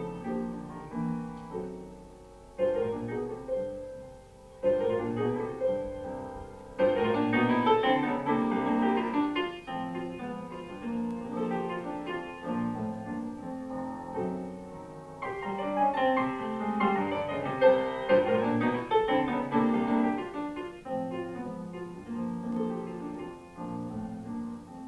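Grand piano playing jazz: phrases of chords and runs with short breaks between them, growing louder about seven seconds in.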